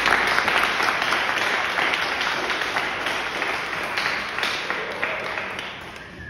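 Audience applauding, loud at first and gradually dying away toward the end.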